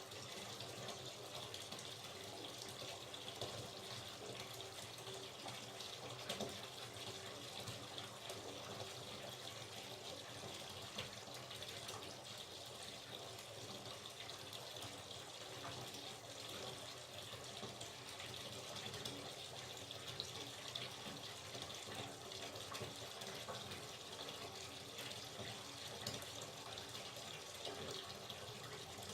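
Hot water running from a tap into a bathtub, filling the bath with a steady splashing pour.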